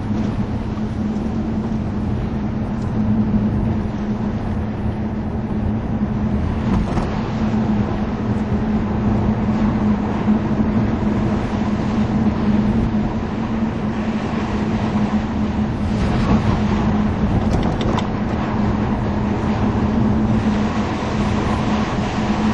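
Vauxhall Monaro's V8 engine running steadily, heard inside the car's cabin as a constant drone, with tyre and road noise over it.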